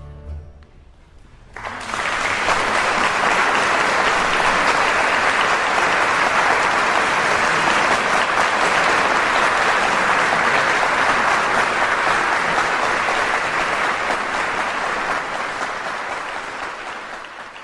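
The last sound of a harpsichord-and-strings piece dies away, then audience applause starts about two seconds in, holds steady and tapers off near the end.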